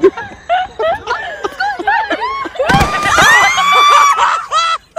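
Short excited human cries and laughter. About three seconds in comes a thump and a loud, drawn-out scream lasting more than a second.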